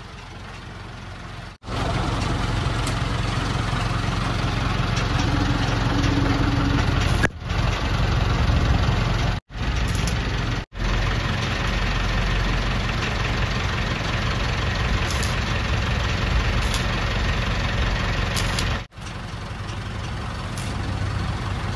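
Electric arc welding crackling and hissing on a truck's broken mudflap bracket, over the truck's diesel engine idling. The welding starts about a second and a half in and breaks off abruptly a few times.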